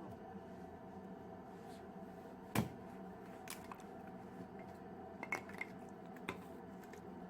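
A few sharp clicks and knocks over a steady low hum; the loudest knock is about two and a half seconds in.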